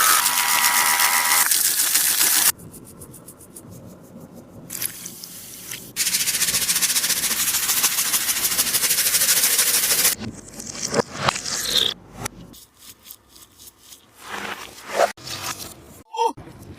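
Adhesive tape pulled off the roll in two long, loud strips, the first with a faint squeal; between and after the strips come scattered crinkles and clicks as the tape and plastic are handled.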